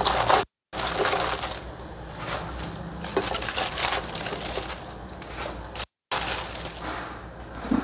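Crisp napa cabbage leaves rustling and crunching as they are grabbed by hand and dropped into a wok of boiling water, an irregular crackling, broken twice by short gaps of silence.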